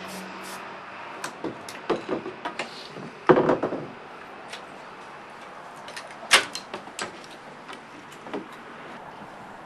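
Scattered knocks and clicks over a steady background hiss, with the loudest cluster of knocks about three seconds in and a sharp single click a little past six seconds.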